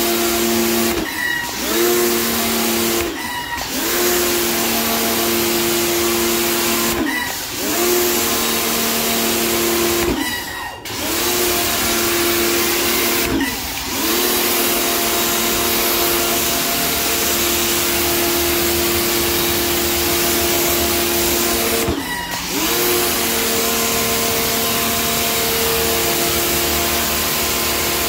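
Pressure washer spraying a fan of water onto tiles: a steady hiss of spray over the pump motor's hum. Both break off briefly about six times, and each time the hum slides back up to pitch as the spray resumes.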